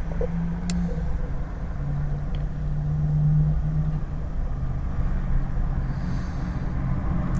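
Steady low vehicle rumble and hum heard from inside a pickup truck's cab, with one sharp click just under a second in.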